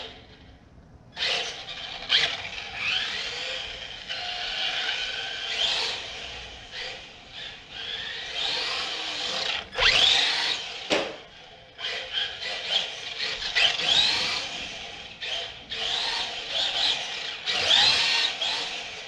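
LaTrax Rally 1/18-scale RC car's electric motor and gears whining, rising and falling in pitch in repeated bursts as the throttle is worked, starting about a second in.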